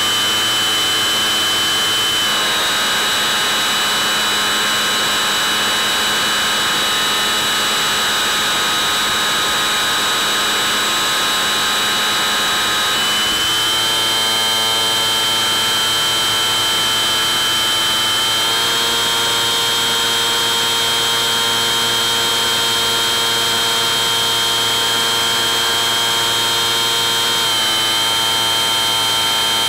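Electric motor and propeller of a Bixler 3 model plane running steadily with a high whine. The pitch shifts in small sudden steps a few times as the throttle changes.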